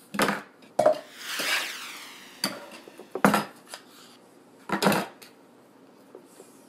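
A spatula knocking and scraping on a griddle amid kitchen containers clattering: a handful of short clattering knocks over the first five seconds, with one longer scraping swish about a second and a half in.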